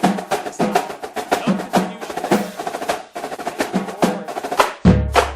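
Percussion-driven background music with a fast, even drum beat; a deep bass comes back in near the end.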